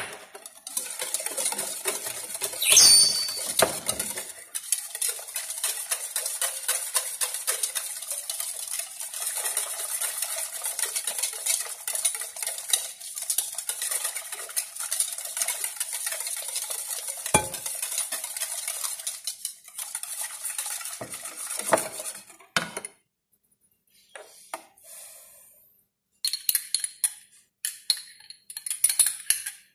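A utensil stirring cake mixture in a mixing bowl, scraping and tapping rapidly against the bowl, with a loud ringing clank about three seconds in. The stirring stops about 22 s in, followed by a few short bursts of clinking near the end.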